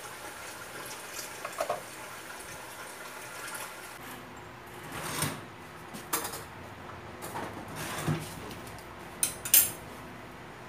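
Kitchen utensils and dishes clinking and being set down on a stone counter: a handful of separate sharp clatters, the loudest near the end.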